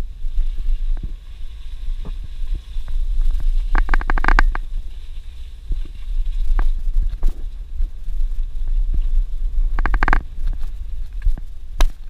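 Suzuki Jimny driving slowly over a rough dirt road, heard from inside the cab: a steady low rumble of engine and tyres with frequent small knocks and rattles from the bumps, and two louder rattling bursts, about four and ten seconds in.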